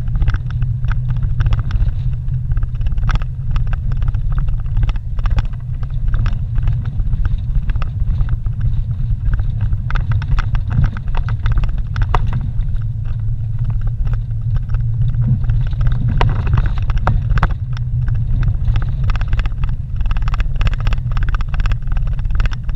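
Vehicle driving on a rough dirt road, heard from inside the cab: a steady low rumble from the engine and tyres, with frequent knocks and rattles as it goes over bumps.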